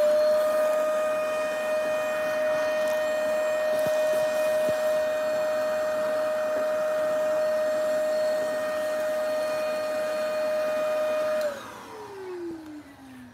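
Vacuum cleaner running with a steady whine, then switched off near the end, its motor winding down in a falling pitch.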